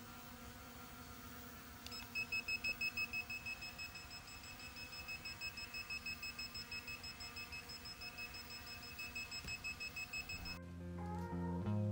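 Small quadcopter drone hovering with a steady hum from its brushless motors. About two seconds in, rapid high electronic beeping starts, quicker at first and then about four beeps a second, and it stops shortly before the end, when background music comes in.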